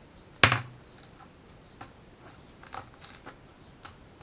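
A plastic T8 LED tube lamp being handled and taken apart. There is a sharp knock about half a second in, then a scatter of small plastic clicks as the end cap is worked loose.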